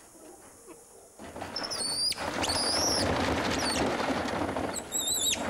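Spider monkeys climbing on a chain-link cage, the wire mesh rattling for about four seconds. High, wavering squeals come three times over the rattle.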